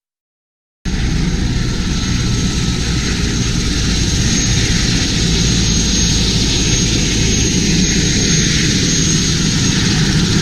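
Helicopter running close by: a loud, steady rotor-and-engine noise with a thin high whine above it. It cuts in abruptly just under a second in, after a moment of silence.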